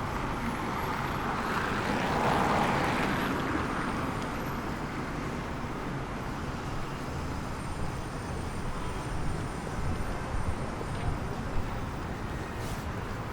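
Street ambience: a vehicle passes, rising and fading about two to four seconds in, then steady low street noise with a few light knocks near the end.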